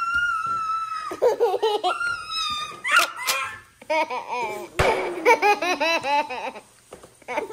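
Young child laughing heartily in repeated bursts of giggles and belly laughs.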